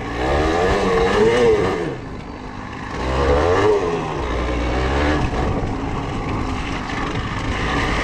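Yamaha TDR 125's two-stroke single-cylinder engine being ridden. It revs up and drops back twice in the first four seconds, then runs at a steadier pitch.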